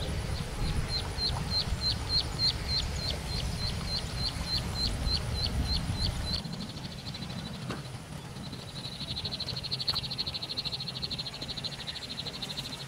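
Small wild animal calling: a steady series of about twenty short, high chirps, each sliding downward, about three a second, over low rumbling noise that stops about six seconds in. Later comes a rapid, high trill lasting about four seconds.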